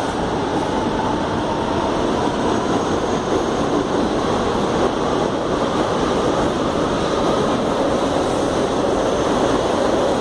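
Electric commuter train running along the platform, a steady rumble and rush of wheels on the rails, with a faint high whine that fades over the first couple of seconds.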